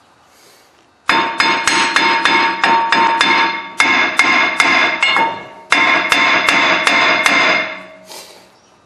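Hammer beating on a cast-iron front brake rotor of a 2007 Lexus ES 350 to break it loose where it is stuck to the hub: quick blows, about three to four a second, in three runs with short pauses, each blow leaving the rotor ringing.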